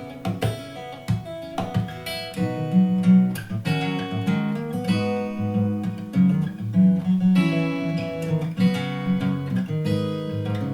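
Acoustic guitar music played back through a Sony SRS-XB3 portable Bluetooth speaker: plucked and strummed chords with ringing notes, picked up by a microphone in the room, with little deep bass.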